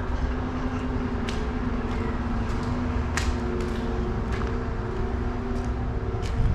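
Footsteps crunching grit and broken tile on a tiled floor, about a step a second, over a steady low rumble and hum.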